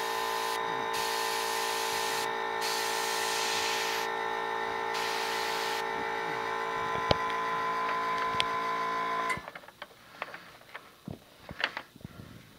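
Airbrush compressor running with a steady motor hum, while the airbrush hisses in about four spurts over the first six seconds as its trigger is pressed and released. The compressor cuts off about nine seconds in, leaving a few faint clicks and taps.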